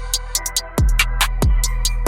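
Background music with a drum-machine beat and deep bass-drum hits.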